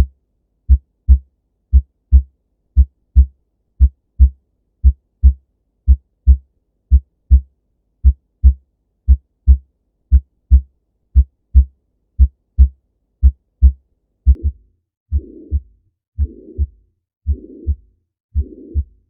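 Abnormal heart sounds: a slow, regular lub-dub, about one beat a second. About fourteen seconds in, a rushing murmur joins, filling the gap between the two sounds of each beat.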